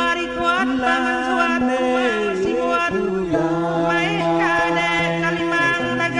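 Music: a voice singing long held notes that slide in pitch, over a steady sustained accompaniment.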